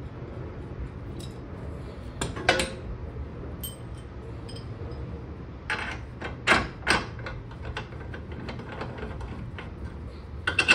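Metal clinks and knocks of loose bolts and a hand wrench being handled and set against a steel suspension knuckle, in a few scattered clusters over a steady low hum.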